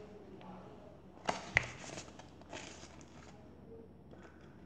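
Paper pages of a picture book being turned and handled: two sharp taps about a second and a half in, then soft rustling.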